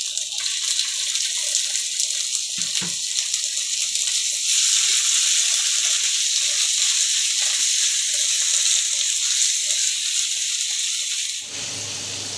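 Onions frying in hot oil with freshly added ginger, garlic and onion pastes, sizzling steadily. The sizzle grows louder about four seconds in and drops off suddenly near the end.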